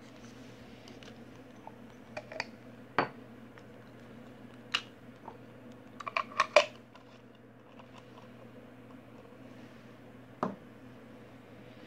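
Glass jars and their metal lids being handled and set down on a hard surface: scattered sharp clinks and knocks, with a quick run of four or five about six seconds in.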